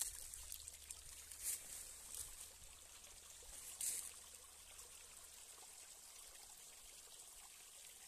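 Small forest stream trickling and splashing down over mossy rocks in shallow cascades, a faint steady watery hiss. There are a few short louder noises in the first half.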